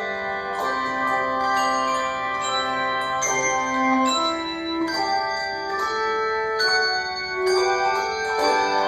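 A handbell choir playing a piece of music. Chords of bells are rung about once a second, and each ringing tone sustains and overlaps the next.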